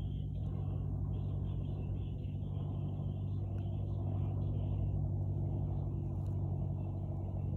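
A steady low mechanical hum, like a running motor, holding one pitch.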